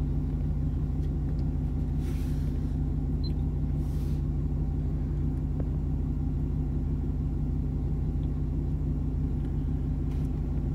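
Chevrolet Tahoe engine idling, a steady low hum heard from inside the cabin, with two brief soft rustles a couple of seconds apart.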